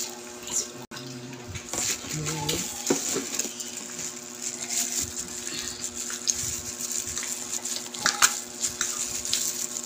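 Close-up eating sounds: chewing and wet mouth clicks on a handful of chicken curry and rice eaten from a plastic-gloved hand. There are a couple of brief voiced murmurs in the first few seconds, over a steady low hum.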